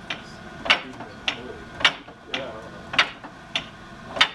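Hand-operated fly press working a red-hot piece of steel held in tongs: sharp metallic clanks about twice a second, every other one louder.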